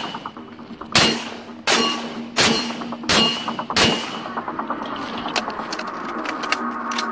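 Scoped semi-automatic rifle fired five times in a steady string, about two-thirds of a second apart, each shot ringing out briefly. Music with a steady droning tone runs underneath and carries on alone after the last shot.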